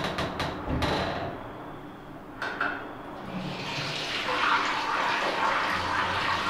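Water running from a tap into a washroom sink, with a few sharp clicks in the first second; the water grows steadier and louder after about three seconds as someone washes at the basin.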